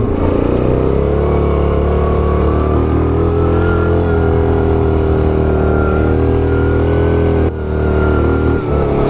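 Yamaha Grizzly 700 ATV's single-cylinder engine running steadily under load up a steep climb in four-wheel drive, its pitch drifting slightly, with an abrupt brief change about seven and a half seconds in. The load is on the CVT belt, which the rider fears may snap.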